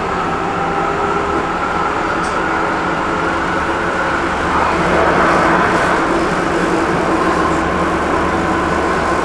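A tram running along the track, heard from inside the car: a steady noise of wheels rolling on rails with a faint, even motor whine. It grows a little louder about halfway through.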